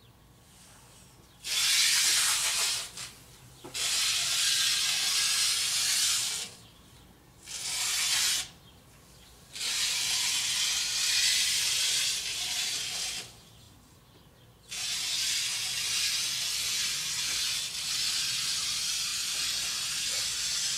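Masking tape and plastic masking film being pulled off a 3M hand-masker roll as it is run along the motorhome's side. It makes a steady hissing noise in five stretches, each under a second to about six seconds long, with short pauses between them.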